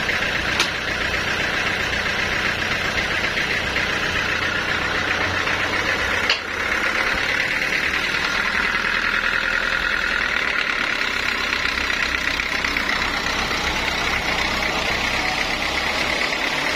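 Sawmill saw cutting through a large teak log, a loud, steady machine noise with a strong high hiss. A short click comes under a second in, and a sharp knock with a brief drop in level about six seconds in.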